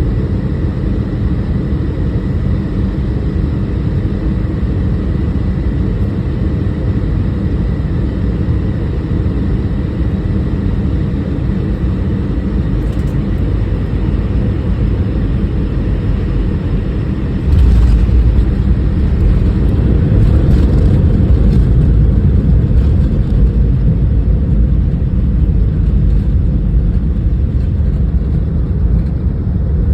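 Airliner landing: a steady low rumble of engines and airflow that jumps suddenly louder a little over halfway through, as at touchdown, and stays louder through the rollout.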